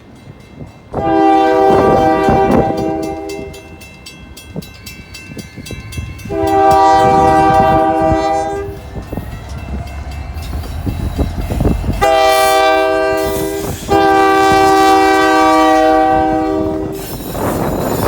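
Diesel locomotive air horn sounding four chorded blasts: two long, a shorter one, then a long one, the pattern of a grade-crossing warning. Wind buffets the microphone, with a low rumble underneath.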